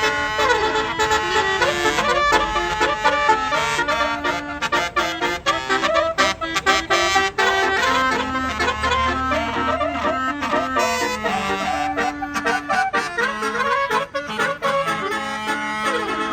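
Basuri telolet bus horn playing a fast melody, its reedy notes stepping quickly up and down without a break.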